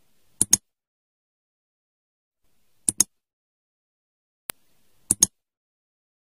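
Computer mouse click sound effects: three quick press-and-release double clicks about two and a half seconds apart, with one lone single click before the last pair, and silence in between.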